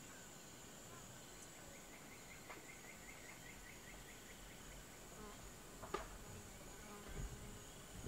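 Faint rainforest insect ambience: a steady high insect drone, with a run of about ten quick chirps about two seconds in. A single sharp click about six seconds in is the loudest sound, and a low rumble rises near the end.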